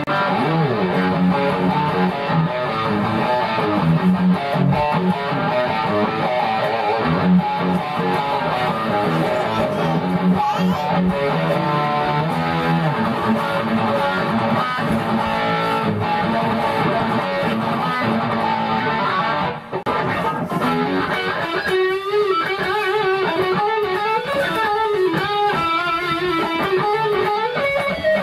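Purple Vintage Metal Axxe electric guitar played through an amp: steady riffing on the lower strings, with a short break about two-thirds of the way through, then a higher lead line with bent and wavering notes.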